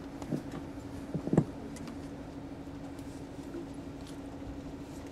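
Tour vehicle's engine idling, a steady low hum heard from inside the cabin, with a few soft knocks about a second in, the loudest near a second and a half.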